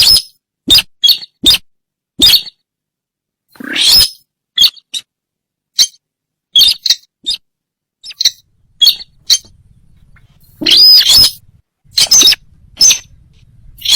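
Sintar bird calls played as a hunting lure: about twenty short, sharp, squeaky calls in an irregular series, with two longer, harsher calls among them.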